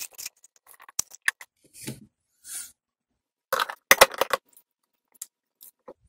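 Dry instant cup noodles shaken out of a foam cup into a glass coffee carafe: a scatter of light rattles, scrapes and clicks, with a cluster of sharper clinks and knocks about three and a half to four and a half seconds in.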